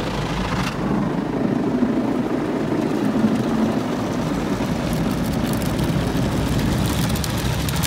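Automatic car wash heard from inside the car: a steady rumble of the wash brushes and water spray beating on the windows and body, with a rapid high spattering that grows toward the end.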